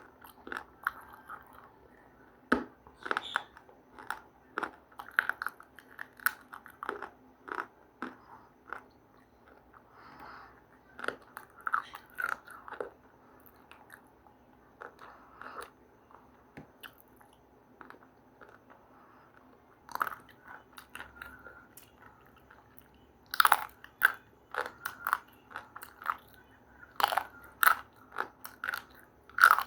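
A person biting into and chewing something hard and crunchy, a run of irregular sharp crunches; the crunching thins out in the middle and comes thick and fast in the last few seconds.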